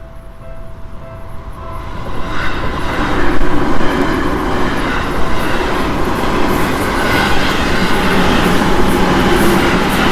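A Seibu Ikebukuro Line train running over a level crossing, its rail noise swelling from about two seconds in and staying loud, with wheels clacking over the rail joints. At the start the crossing's warning bell is still heard dinging, then it is drowned out by the train.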